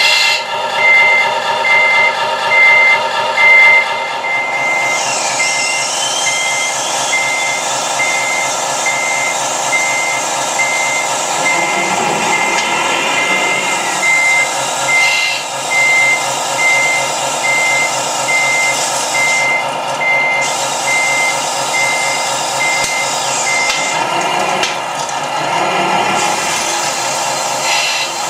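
Reversing beeper on a radio-controlled construction vehicle sounding in steady, evenly spaced beeps over the whine of its electric drive motors. The beeping stops a few seconds before the end while the motors keep running.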